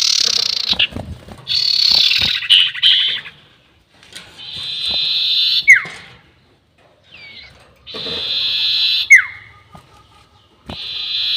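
Sirtu bird song, its long 'nyiul' call used as a lure: a run of long, high, buzzy trilled phrases, each a second or more long, several ending in a sharp down-slurred note, with short pauses between them.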